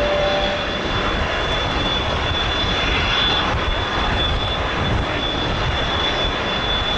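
Boeing 787-9 airliner running on the apron during pushback: a steady rush with a constant high whine.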